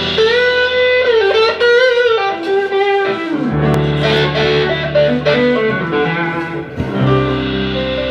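Live band playing a song's instrumental intro: an electric guitar plays a lead melody with bent, wavering notes, and a bass line comes in about three and a half seconds in, with a chord change near the end.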